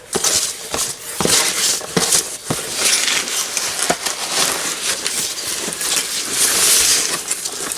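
Plastic packing material being handled and crinkled, with a continuous rustling hiss and irregular sharp crackles of static.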